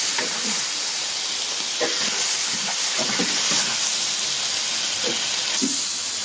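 Food sizzling in a large wok, a steady hiss, with a few scrapes and knocks of a metal spatula as it is stirred and scooped out.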